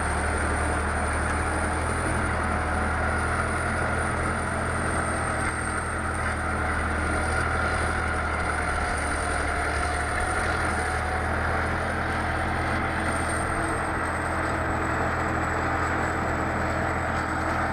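A heavy vehicle's engine running steadily: a low, unchanging drone with a thin, steady high-pitched whine over it.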